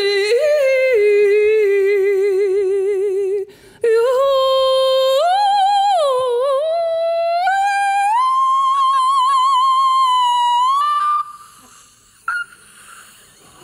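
Unaccompanied female singing voice holding long notes with vibrato. After a short break about three and a half seconds in, it climbs in steps to a high note that it holds until about eleven seconds in.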